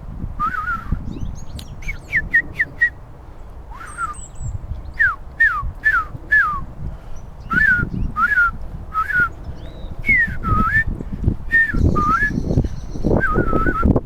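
A string of short whistled notes, mostly falling slides, about one or two a second, with a few faint high thin bird calls among them. Wind rumbles on the microphone throughout.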